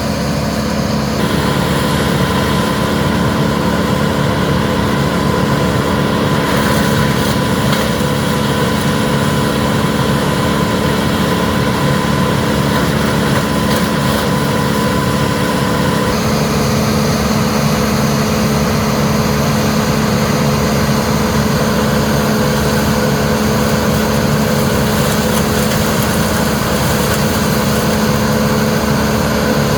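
Large engine of the tree crew's equipment running steadily at idle, with a steady hum and a higher whine that shifts about a second in and again around halfway through.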